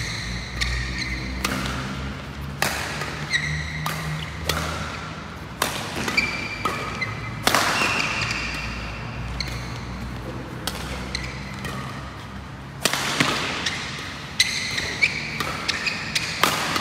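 Badminton rally: sharp cracks of rackets striking the shuttlecock at irregular intervals, mixed with short high squeaks of court shoes on the floor mat.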